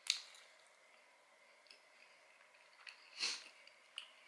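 Faint mouth sounds of a person chewing a bite of fried chicken sandwich: a sharp lip smack right at the start, a short breath about three seconds in, and a small click near the end.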